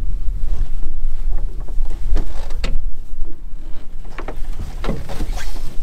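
Wind rumbling on the microphone aboard a small boat, with a few irregular knocks and scrapes from a lobster pot line being hauled in by hand.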